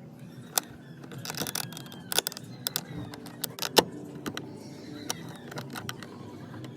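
Mazda3 power-folding side mirror making a run of sharp, irregular clicks over a low motor hum while it fails to fold: the fault the mirror is being repaired for.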